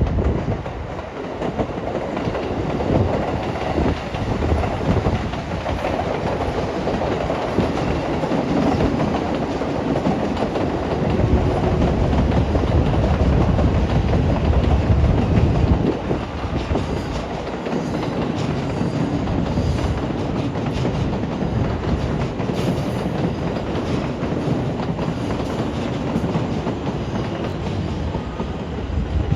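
Train running on rails: a steady rumble with wheels clattering over the track, louder for a few seconds around the middle.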